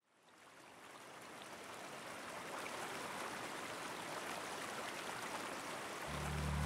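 Steady rush of flowing water, fading in from silence at the start. Deep bass notes of music come in near the end.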